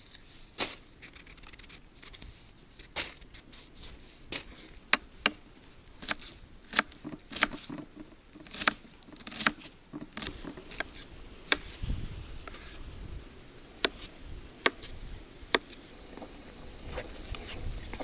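A series of irregular sharp clicks and light clinks, about one a second, over faint background noise, with a brief low rumble about two-thirds of the way in.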